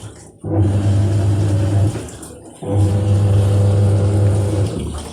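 Washing machine in its wash cycle: the drum motor hums in two spells of about one and a half to two seconds each, stopping briefly between turns, with water swishing in the drum.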